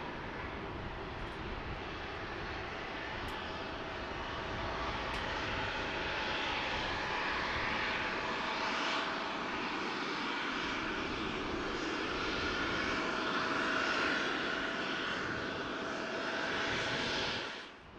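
Jet aircraft engines running steadily, with a faint whine over the noise, growing louder after about five seconds. The sound drops out briefly near the end.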